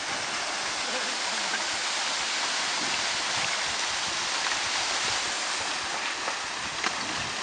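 Steady rush of water in a small, polluted stream cascading over a low drop.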